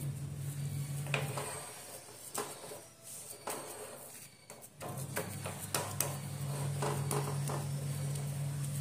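A spatula pressing and spreading a thick, grainy sweet mixture in a metal tray, with scattered taps and scrapes against the tray. A steady low hum runs behind it, dropping away for a few seconds in the middle.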